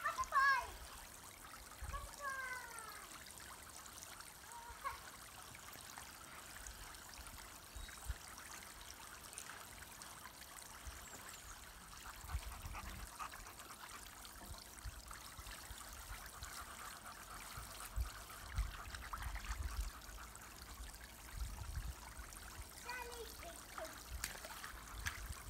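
Water spraying steadily from the hose-fed jets of a garden water slide, an even hiss of running water.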